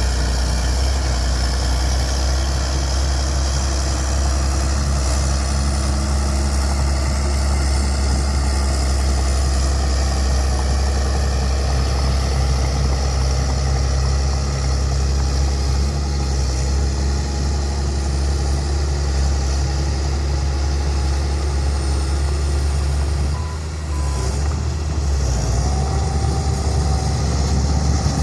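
Bulldozer's diesel engine running steadily with a deep, even drone, dipping briefly about 23 seconds in; a steady whine joins near the end.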